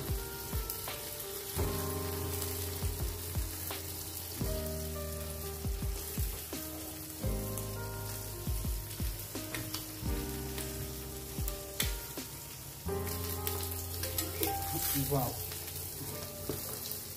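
Fried egg and burger buns sizzling on a hot iron tawa, a steady hiss with a few light knocks as the buns are handled. Background music with held notes changing every few seconds plays over it.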